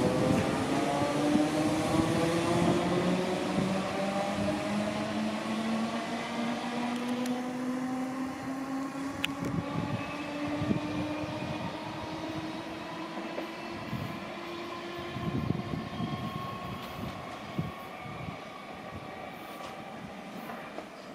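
Class 313 electric multiple unit pulling away and accelerating: its traction motors whine in several tones that rise steadily in pitch, with wheels knocking over rail joints and points, the whole growing fainter as the train draws away.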